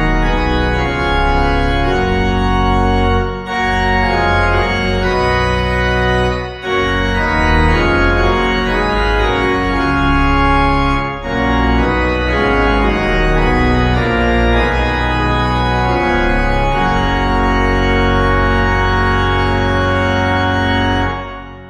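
Organ playing held chords in phrases, with short breaks between phrases, fading out near the end.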